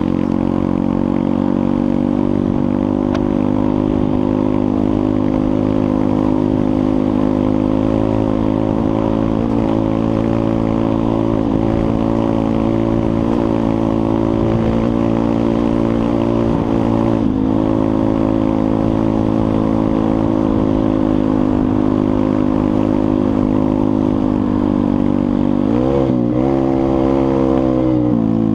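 Pit bike's small single-cylinder four-stroke engine running at steady throttle while riding. The pitch wavers down and back up near the end.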